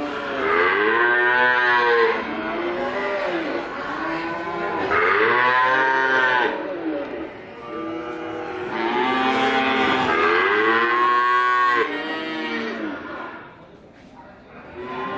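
A calf mooing over and over, about five or six long bawls in a row, each rising and then falling in pitch, with a quieter pause near the end.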